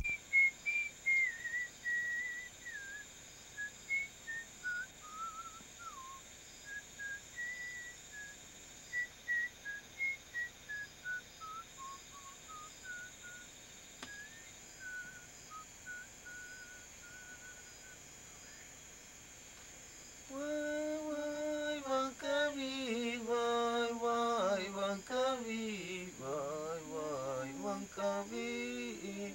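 A whistled icaro, a shaman's healing chant melody, in short stepped notes that drift slowly downward. About two-thirds of the way through the whistling stops, and a man's voice takes up the chant in a low steady tone.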